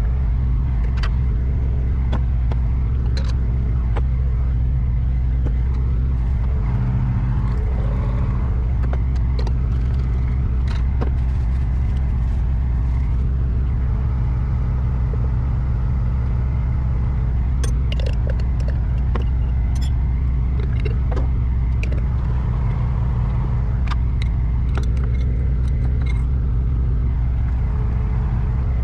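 Truck diesel engine idling steadily with a constant low hum, under scattered small clicks and clinks of dishes and a cup being handled and wiped, most frequent in the second half.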